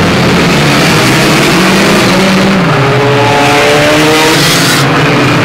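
Several small hatchback race cars running together as a pack, their engines revving at different pitches, with one engine note climbing in pitch over a couple of seconds midway.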